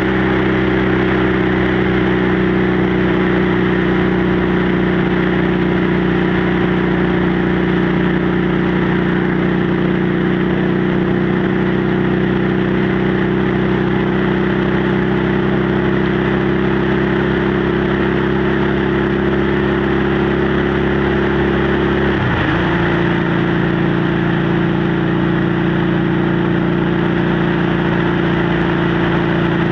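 Motorcycle engine and exhaust running steadily at cruising speed, with wind rushing past. About three-quarters of the way through, the engine note dips briefly and then settles a little lower.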